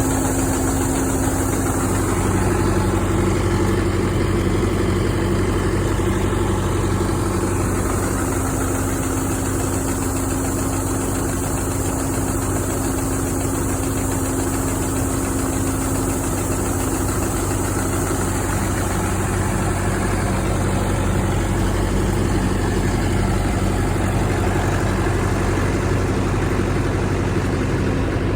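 Clayson M122 combine harvester's engine idling steadily, with no change in speed.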